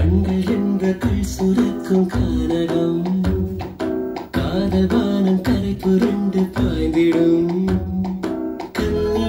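Malayalam film song music playing from a vinyl LP on a turntable: plucked strings and other instruments over a steady drum beat.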